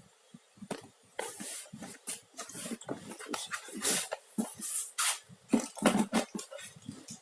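Plastic packaging rustling and crinkling in irregular bursts as stabilizer parts are handled and pulled out of the box.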